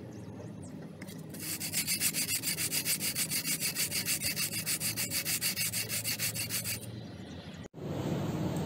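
Cut edge of a black plastic container rubbed by hand back and forth on a flat sheet of sandpaper, sanding the edge smooth. The strokes are quick and even, about five or six a second, starting about a second in and stopping near the end.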